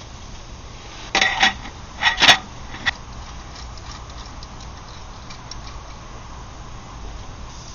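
A few short clattering knocks, the loudest about two seconds in, over a low steady background hum.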